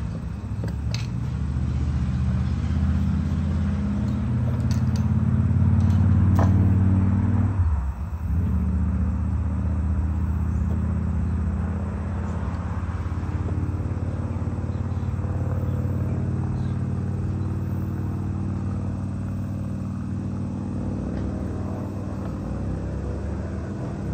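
Steady low engine rumble, swelling to its loudest about six seconds in and easing briefly about eight seconds in, with a few light metal clicks in the first seven seconds.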